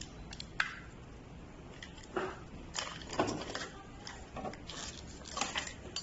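Irregular short clicks, taps and rustles of hands handling a scooter's handlebar switch housing, its rubber cover and wiring.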